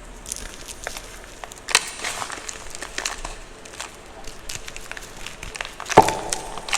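Blocks of gym chalk being crushed, giving crisp crunches and crackles. A loud crunch comes about two seconds in, and the loudest one near the end.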